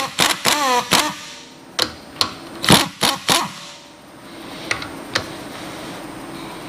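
Power tool with a 21 mm socket spinning the top nut off a VW Golf R front strut held in a vise, with a string of sharp metal clunks and knocks as the top mount and the uncompressed coil spring come free. A quieter steady noise follows in the second half.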